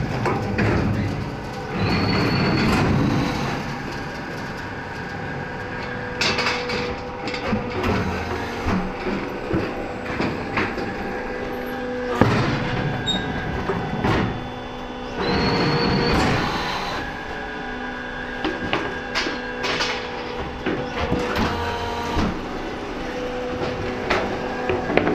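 Automatic fly ash brick plant running: the hydraulic brick press and its power pack hum steadily, surging louder with rushing noise every several seconds as the press cycles, with metallic clanks and knocks of the machinery and pallets in between.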